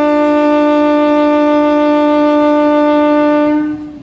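Train horn sounding one long, loud, steady blast at a fixed pitch, dying away just before the end.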